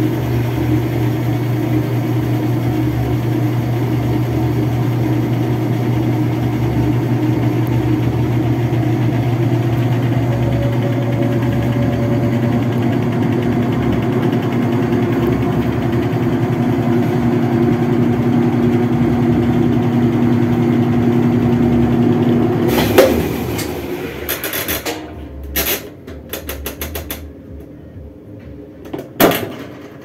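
Whirlpool top-load washing machine's motor running with a steady hum, then cutting off with a knock about 23 seconds in: the washer works only momentarily before it stops. A few clicks follow near the end as the timer dial is handled.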